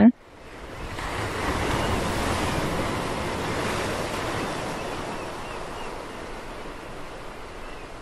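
Ocean waves breaking and washing up on a beach, a rushing surf that swells in over the first couple of seconds and then slowly fades.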